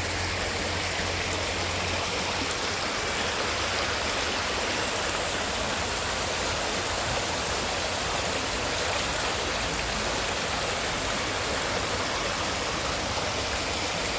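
Steady rushing water, an even hiss with no change in level or rhythm.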